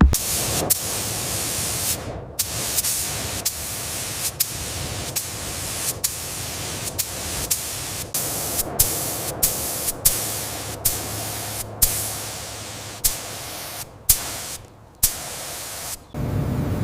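A loud, steady spraying hiss, broken by sharp clicks about every half second and a few brief gaps. It cuts off shortly before the end.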